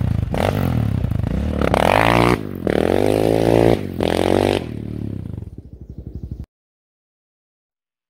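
Yamaha Raptor 700 sport quad's single-cylinder engine revving hard as it pulls away on a dirt track, the pitch climbing and dropping at each gear change, about three times. It fades as the quad moves off, then cuts off abruptly about six and a half seconds in.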